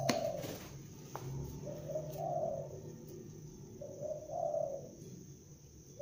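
A dove cooing: a short rising-and-falling phrase repeated about every two seconds. Two light clicks of a small knife against a wooden block come early.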